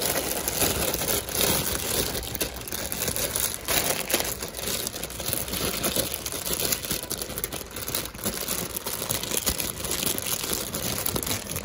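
Clear plastic bag crinkling and crackling continuously as hands pull a plush toy out of it.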